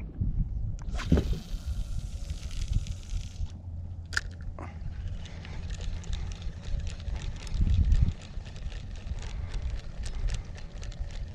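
Handling noise on a fishing kayak: a steady low rumble, a hiss lasting about two seconds near the start, then a run of fine rapid clicks.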